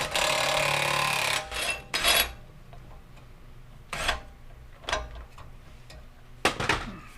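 Impact wrench running for about a second and a half to back off the screw of a ball joint press, then the press's metal pieces clanking several times as they are taken off the control arm.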